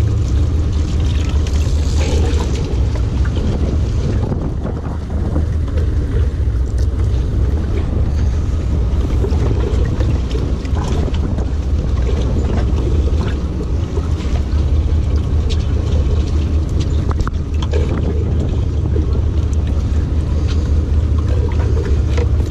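Sportfishing boat's diesel engine running steadily under way, a deep even drone, with a few light clicks and knocks on board.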